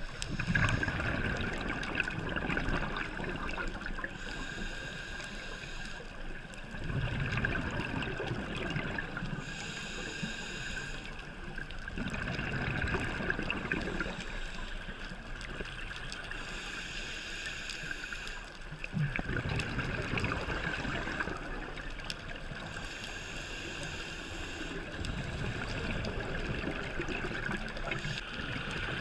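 Scuba regulator breathing underwater: a bubbly exhalation rumbles for a second or two about every six seconds, with a hissing inhalation between.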